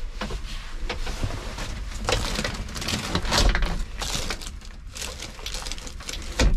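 Clear plastic bag handled in the hand, crinkling in irregular bursts, with a knock near the end.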